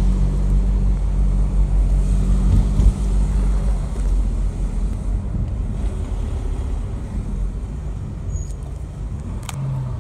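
Car engine running with a low, steady drone and road noise, heard from inside a moving car's cabin; the engine note eases off after about four seconds.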